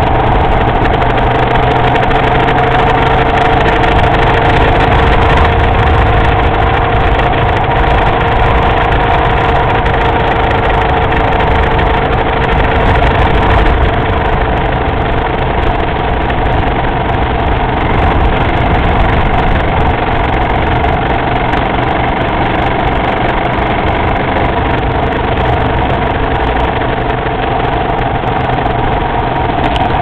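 Motorcycle engine running steadily while riding, its note holding nearly even throughout, over a steady rush of road and wind noise.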